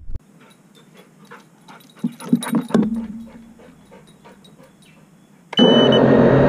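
FPV drone's motors spin up suddenly about five and a half seconds in, a loud steady whir with a brief high tone as it starts. Before that there are only faint clicks and small movement noises.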